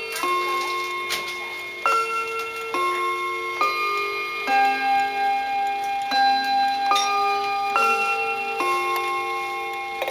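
Linden cuckoo clock playing its on-the-hour melody: a slow tune of held notes, often two or three sounding together, changing about once a second, with a click at each change of note.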